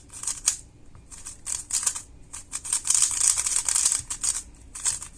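Moyu RS3M 2020 magnetic 3x3 speedcube being turned by hand for the first time: quick plastic layer turns clacking and rasping in short runs, with a fast unbroken flurry of turns about three to four seconds in.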